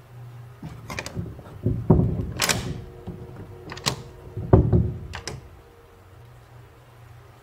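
A locked wooden door's lever handle is tried and rattled: latch clicks and the door thudding against its frame. Two heavy thumps stand out, about two and four and a half seconds in.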